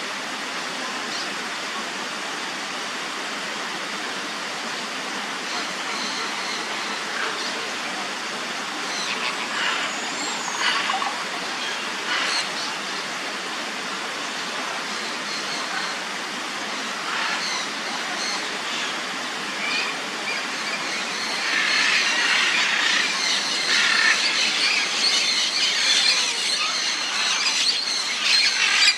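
Roseate spoonbill chicks begging: repeated high, thin squealing calls, which come thicker and louder for the last several seconds, over a steady rushing background.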